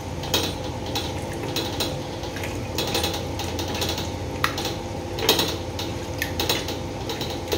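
Raw chicken pieces mixed by hand with turmeric and salt in an aluminium bowl: scattered light clicks and taps as the meat and fingers knock against the metal, one sharper click about four and a half seconds in.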